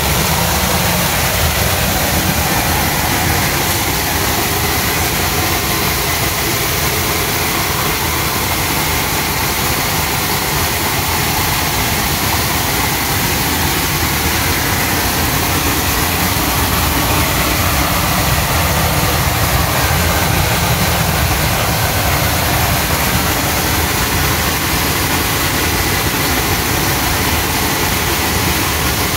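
ANYSORT VM colour sorter running while sorting mung beans, a loud, steady machine noise with a low rumble under a constant hiss and a faint high whine.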